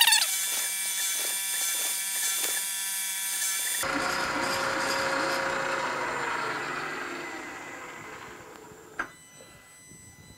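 Milling machine spindle running with a half-inch end mill, a steady machine whine, then switched off about four seconds in and coasting down, its pitch falling and fading away over several seconds. A single click near the end.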